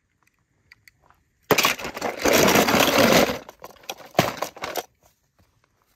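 Toy cars clattering: a loud rattle of small hard objects about a second and a half in, lasting about two seconds, followed by several sharp knocks.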